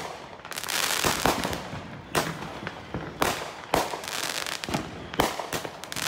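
Red Apple Gorilla Box consumer firework cake firing shot after shot: sharp bangs of aerial shells bursting about once a second, with dense crackling and popping of the stars between them.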